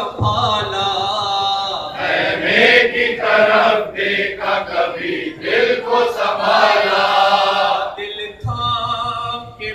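Male voices chanting a noha, a Shia mourning lament, in long held lines with short breaks between phrases.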